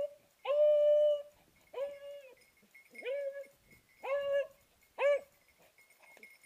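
Hunting hound baying over a shot wild boar: a series of pitched cries about one a second, the second one the longest, stopping about five seconds in.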